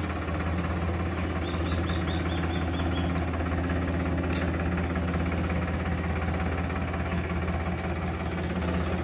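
Powertrac Euro 50 tractor's diesel engine running steadily as the tractor moves off slowly with a rotavator hitched behind. A brief run of high chirps comes about two seconds in.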